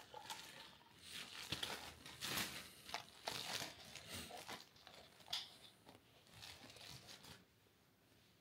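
Irregular crinkling and rustling of handled material, stopping a little past seven seconds in.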